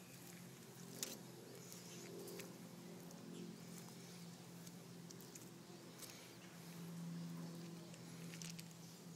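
Faint clicks and scraping of a fork pulling apart smoked chicken on aluminium foil, the sharpest click about a second in, over a low steady hum.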